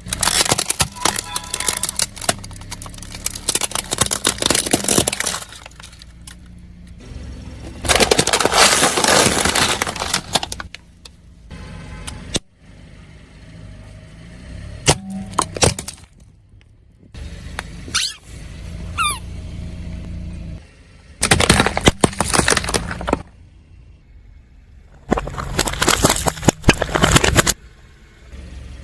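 A car's tyres rolling over and crushing crunchy objects and slime-filled piping bags: four bursts of cracking and crunching, with the car's engine running low in between.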